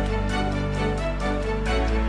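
Background music: sustained chords over a deep bass line.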